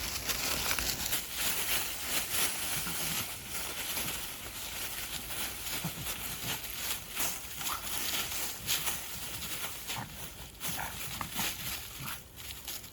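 Sounds from a Boston terrier, with many small clicks and rustles throughout.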